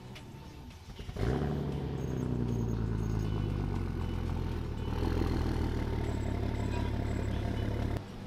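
FPV Ford Falcon sedan starting up: a brief crank about a second in, then the engine catches with a flare of revs that falls away and settles into a steady idle through the exhaust. The sound cuts off suddenly near the end.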